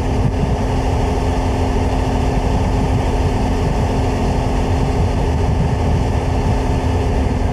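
Honda Transalp V-twin motorcycle engine running steadily at cruising speed, with wind rushing over the microphone.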